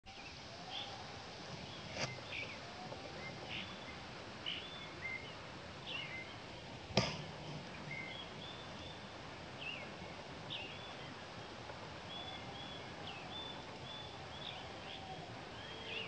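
Plain prinias calling: a steady run of short, high chirps and chips, with lower curving notes underneath. Two sharp clicks stand out, about two and seven seconds in.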